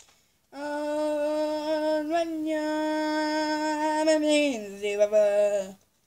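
A girl's voice holding a long, wordless note, then dropping to a lower note near the end.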